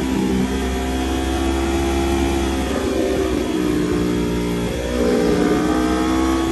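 Aprilia RSV4 RR's V4 engine heard from the rider's seat, pulling hard through a run of bends. The engine note drops and climbs back a couple of times as the throttle is rolled off and on again, with wind rushing past.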